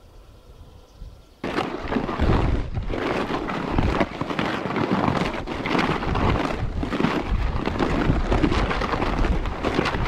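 Wind buffeting the microphone: a heavy, rumbling roar that cuts in suddenly about a second and a half in and keeps going in irregular gusts.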